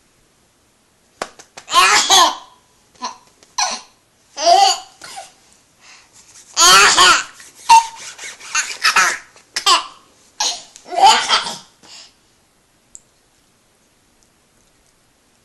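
A baby laughing in a string of short fits with brief pauses between them, dying away about twelve seconds in.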